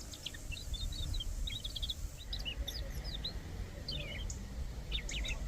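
European robin singing: high, thin chirps and quick twittering phrases in scattered short bursts, over a low background rumble.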